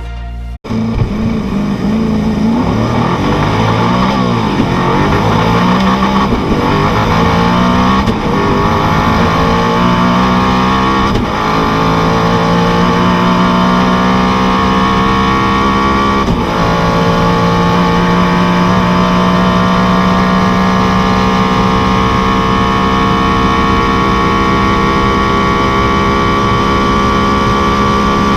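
Koenigsegg Agera RS twin-turbo V8 accelerating hard: the engine note climbs and drops back at each upshift several times, then holds a nearly steady high pitch for the last dozen seconds at high speed.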